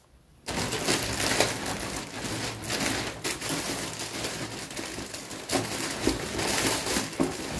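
Loud crinkling and rustling of a delivery parcel's packaging being rummaged through to pull out an item, starting about half a second in, with many small knocks and crackles.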